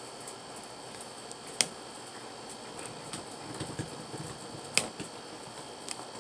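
Sharp clicks and light taps of small hard objects being handled: two loud clicks about three seconds apart and a few fainter ticks between them, over faint room noise.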